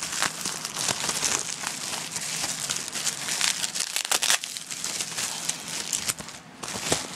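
Packaging wrap being crinkled and pulled open by hand: dense, continuous crinkling with many sharp crackles.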